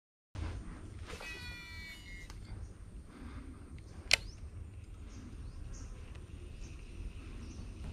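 Outdoor ambience by a jungle waterway. Under a steady low rumble, a short run of high, meow-like animal calls sounds about a second in. A single sharp click comes about four seconds in, with a faint steady high tone throughout.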